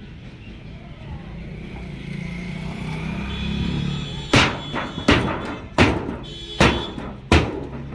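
A steady low rumble, then, a little past halfway, five hard metal blows about one every three quarters of a second: the old refrigerator being struck to break it apart for scrap.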